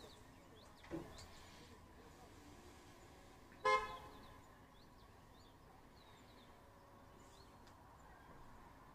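A single short car horn toot a little under four seconds in, over quiet room tone, with a soft knock about a second in.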